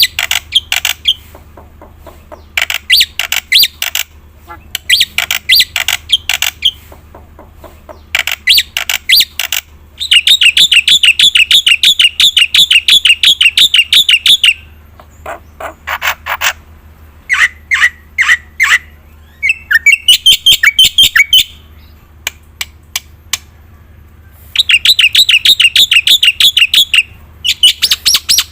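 Black-winged starling (jalak putih) singing loudly in a varied, full song of rapid chattering rattles, trills and clicking notes, packed with phrases learned from other birds. The song comes in bursts of a few seconds separated by short pauses.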